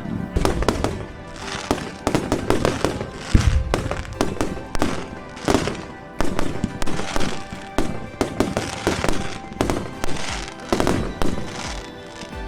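Fireworks display: a dense, irregular run of bangs and crackling bursts, with music playing underneath.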